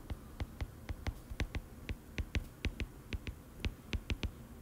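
Stylus tip tapping on a tablet's glass screen while capital letters are handwritten: a run of small sharp clicks, irregular, about five a second.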